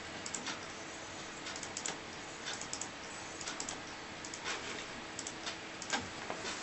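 Light, irregular clicks from a computer's keyboard and mouse being worked, several coming in quick pairs, over a faint steady hum.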